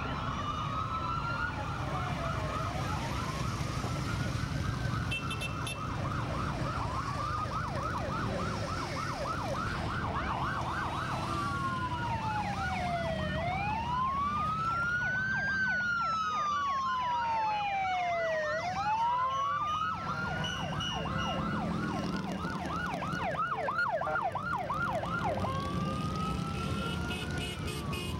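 Electronic sirens on the lead police escort motorcycles, switching between a slow rising-and-falling wail and a fast yelp several times, over the steady low rumble of many motorcycle engines.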